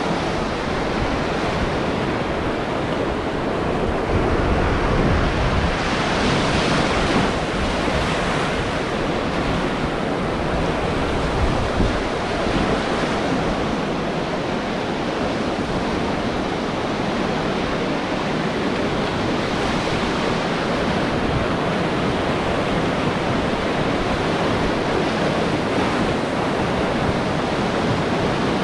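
River rapids: a loud, steady rush of whitewater, with wind rumbling on the microphone.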